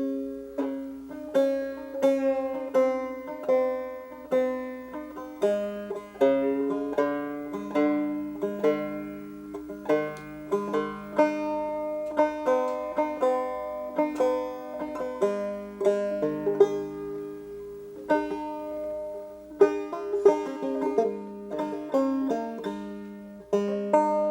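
Solo banjo picking an old-time tune at a steady pace, each note plucked and ringing out over a repeated low note, with no singing.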